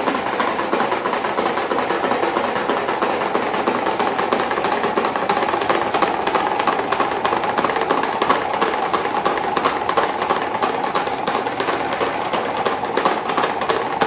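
Electric desk fan fitted with two large paddle blades running fast, with a loud, continuous mechanical rattle and clatter as the whole fan shakes and wobbles on its base.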